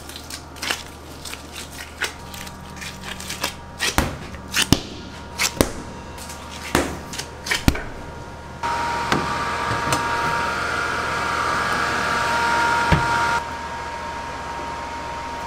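Kitchen handling noises during pizza dough prep: a run of sharp clicks and knocks. About halfway a steady whirring hum with a faint whine comes in abruptly and drops in level near the end.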